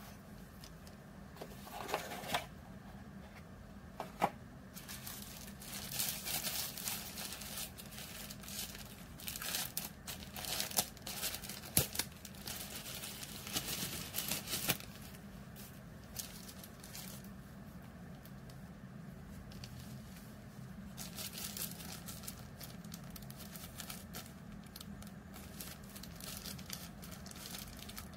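Thin plastic packaging bag of spare silicone ear tips crinkling and rustling as it is handled, in uneven bursts, with a few sharp clicks.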